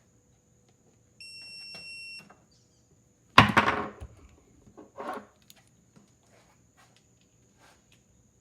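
A steady electronic beep lasting about a second, then a loud clatter with a short ringing tail, a smaller clatter about a second and a half later, and a few light clicks, as a click-type torque wrench is set up for testing.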